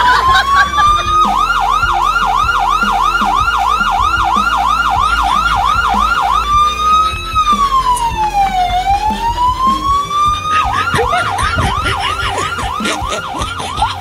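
Electronic police siren going loud, switching between a slow rising-and-falling wail and a fast yelp of about four chirps a second, then back to the wail and again to the yelp.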